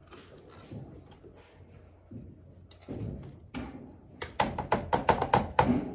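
A small supplement jar handled over plastic dog-food bowls: scattered soft clicks and knocks, then a quick run of about six sharp taps in the last second and a half as the jar is tapped and shaken to get its contents out.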